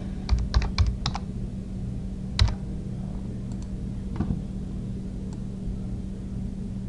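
Computer keyboard keystrokes as a number is typed into a field: a quick run of about five keys in the first second, then one louder key about two and a half seconds in and a few fainter taps later, over a steady low hum.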